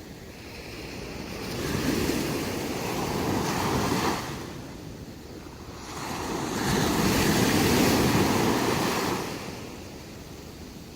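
Ocean waves breaking on a beach: two swells of surf, each building, cresting for a few seconds and then falling away.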